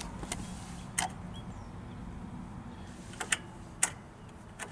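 A handful of sharp clicks from the key switch and relay as the ignition key of a Cub Cadet 1811 lawn tractor is turned, with no starter motor cranking: the tractor fails to start.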